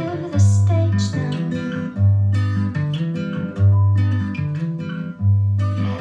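Recorded music played over hi-fi loudspeakers in a listening room: an instrumental passage of plucked acoustic guitar, with a deep bass note landing about every second and a half, four times.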